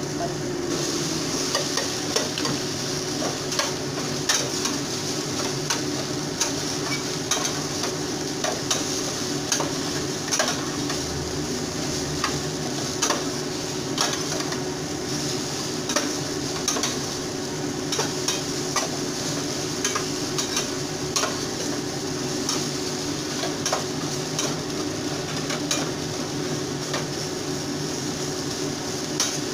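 Okra and mushrooms sizzle steadily in a frying pan, starting about a second in as they go into the hot oil. A metal spatula stirs them, with frequent clicks and scrapes against the pan.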